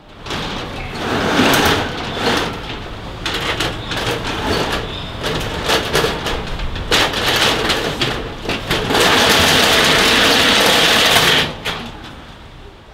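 Metal roller shutter being hauled open by hand, its slats rattling and clattering as they roll up, with a steady loud stretch near the end before the sound dies away.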